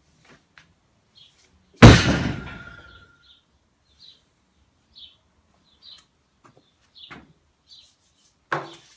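A barbell loaded with 202.5 kg is set down hard onto a wooden deadlift platform: one heavy crash about two seconds in, with the bar and plates ringing as it fades over about a second. Faint short chirps follow about once a second, and a smaller knock comes near the end.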